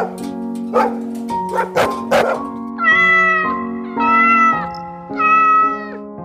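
A dog barks a few times, then a cat meows three times in long, high, drawn-out calls, all over soft background music.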